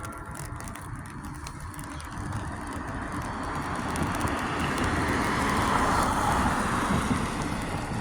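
A vehicle passing by: a broad rushing noise that swells over a few seconds, loudest about six seconds in, then fades, over a steady low rumble.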